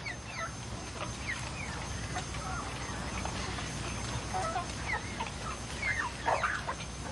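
Chickens clucking with scattered short calls across a farmyard, over a low steady background hum.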